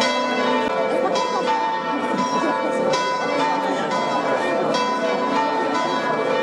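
Church bells ringing in a peal, struck about once a second with long overlapping ringing tones, over crowd chatter.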